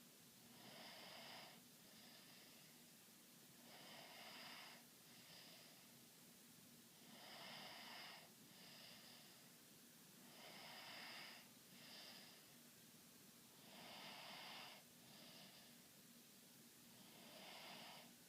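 Faint, regular snoring. Each breath cycle brings a longer snore followed shortly by a short one, repeating about every three and a half seconds.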